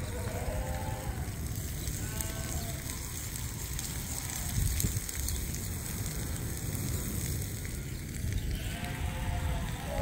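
Sheep bleating: a few short bleats just after the start and around two seconds in, then more near the end, over a steady low rumble.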